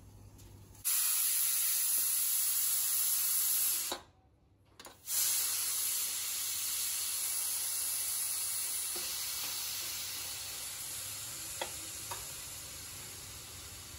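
Pressure cooker venting steam: a steady hiss that starts suddenly about a second in, breaks off for about a second around four seconds, then resumes and slowly dies down, with two small clicks near the end.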